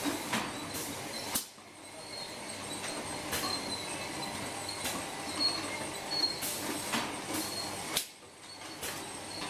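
Empty-bottle shrink-wrapping machine running: a steady mechanical hum, broken by about a dozen irregular sharp clacks and short hisses as the bottles are pushed into rows. The hum drops away briefly twice, about one and a half and eight seconds in.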